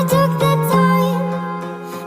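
Background music: a slow melody of long held notes over a sustained low note.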